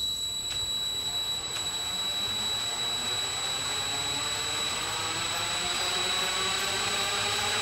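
Cordless drill driving a dune-buggy wheel and knobby off-road tire on its hub, a steady high whine over a whir that grows slowly louder as the wheel spins faster.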